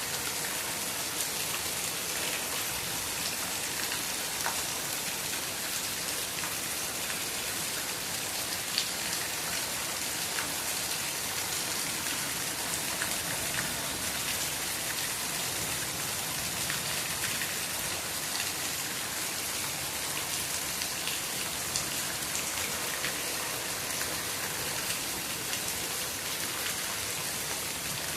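Steady rain falling, an even hiss dotted with the sharper ticks of individual drops hitting nearby surfaces.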